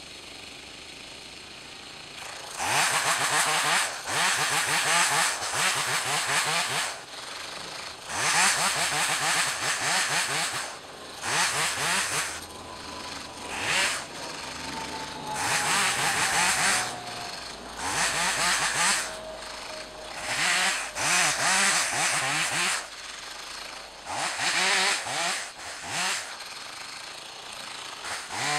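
Stihl MS 180 C two-stroke chainsaw cutting branches: it revs up to full throttle for cuts of one to four seconds, about eight times, and drops back to idle between them.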